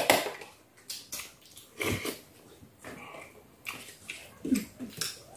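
People eating from plates with spoons: scattered short clicks and scrapes of spoons against plates, along with chewing. The loudest click comes about two seconds in.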